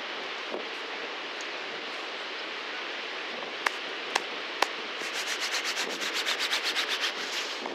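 Gloved hands rubbed together briskly close to the microphone in the last few seconds, a fast even scrubbing of about ten strokes a second, over steady wind and surf. A little before it, three sharp clicks in quick succession.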